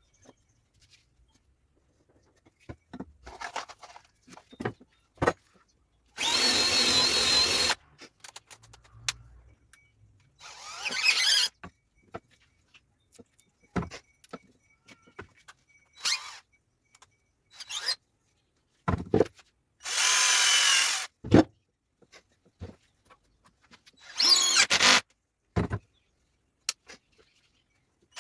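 Power drill running in four short bursts of about a second each, with small knocks and clicks from handling the wood and tool in between.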